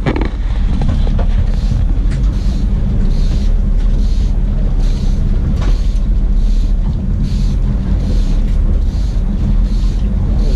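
Boat engine droning steadily at slow trolling speed, with repeated hissy surges of wind on the microphone and water along the hull about once a second.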